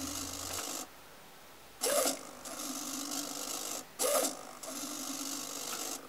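SG90 micro servo whirring as it swings the arm that drops and lifts a fake spider. It runs in spells: a short, louder whir about two seconds in and again about four seconds in, each followed by a steadier buzz lasting over a second, with a short pause about a second in.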